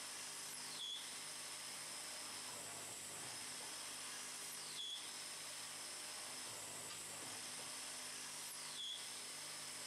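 1988 German cam-controlled automatic wood-turning lathe running steadily while turning wooden beads from a dowel rod, with the hum of its motor and the hiss of the cutting. A short falling whine with a brief rise in loudness comes about every four seconds, three times, as the cam-driven cycle repeats for each bead.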